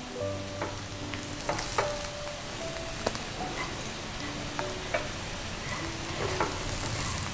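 Minced garlic sizzling in oil in a small frying pan as it is stirred with wooden chopsticks, frying toward golden and crisp. Scattered light clicks and taps of the chopsticks and a spatula against the pans and a plate.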